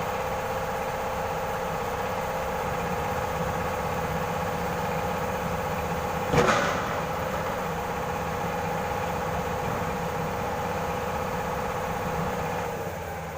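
Heavy-equipment engine idling steadily, with one sharp knock about six seconds in; the engine sound eases off near the end.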